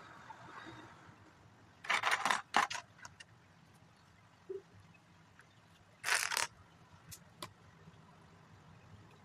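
Small plastic Lego pieces being handled and rattled: two short bursts of rattling about two and six seconds in, with scattered small clicks between.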